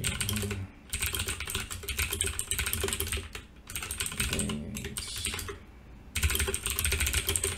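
Fast typing on a computer keyboard: four runs of quick key clicks separated by short pauses.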